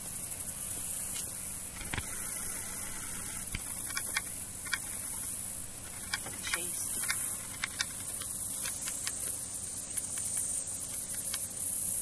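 A high-pitched, continuous insect chorus, with scattered faint clicks over it.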